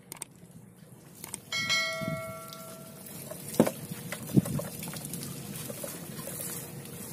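Seawater splashing and draining out of a bamboo-poled lift net as it is hauled up. About a second and a half in comes a single bell-like metallic ring that fades over about a second, and two sharp knocks follow a couple of seconds later.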